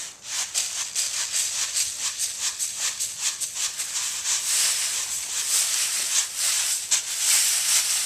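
Rice grain rattling and swishing across a round bamboo winnowing tray as it is shaken by hand, in a quick steady rhythm of about three to four shakes a second.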